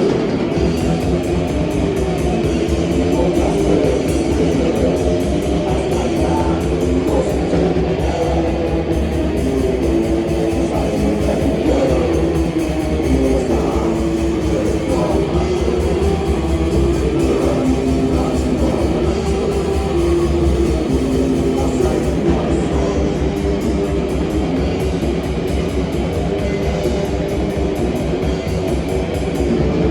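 Live rock band playing loud and steady, with electric guitars over a drum kit.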